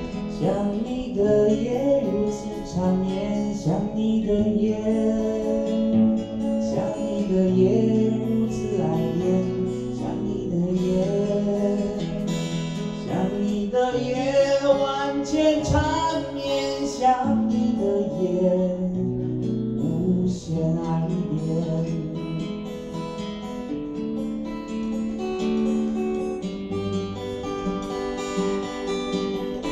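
A man singing while strumming an acoustic guitar, steady music throughout.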